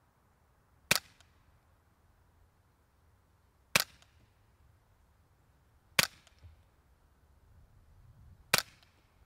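Four suppressed .22 LR shots from a Remington 597 semi-automatic rifle fitted with a TBA Peacemaker suppressor, firing Gemtech subsonic rounds, two to three seconds apart. Each is a short, sharp report, metering about 115 dB.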